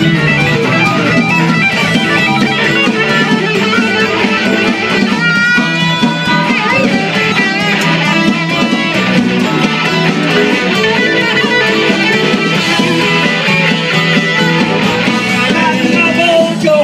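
Live blues band playing an instrumental break: an electric guitar solo over bass and drums, with bent notes about five seconds in.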